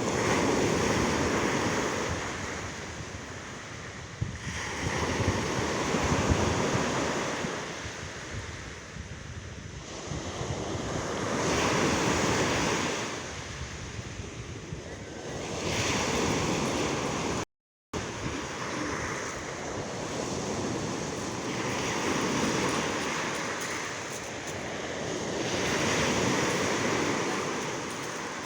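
Sea waves breaking and washing in, the surf swelling and ebbing every three to four seconds. The sound cuts out completely for about half a second a little past halfway.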